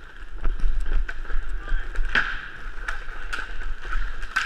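Roller hockey skate wheels rolling and scraping across plastic sport-court tiles, with sharp clacks of sticks and puck on the floor several times, the loudest about two seconds in. A low rumble from the helmet-mounted microphone runs underneath.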